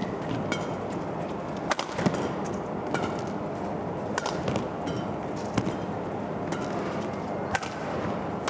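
Badminton rally: the shuttlecock is struck back and forth with rackets, a sharp crack every second or two, over a steady arena hum.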